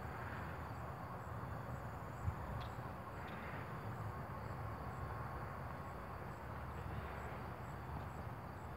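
Steady outdoor background noise: a low rumble with a faint high chirp repeating about twice a second, and a single short knock about two seconds in.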